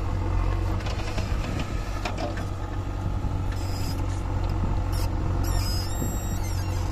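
Four-cylinder diesel engine of a JCB 3DX backhoe loader running steadily with a low drone under hydraulic load as the backhoe arm swings and its bucket digs into sand.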